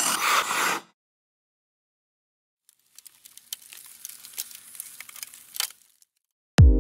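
Intro sound effects for an ice-themed logo animation: a sharp burst of shattering noise lasting under a second, then after a pause a faint crackling like ice. Near the end an electronic music track starts with a deep bass drum hit.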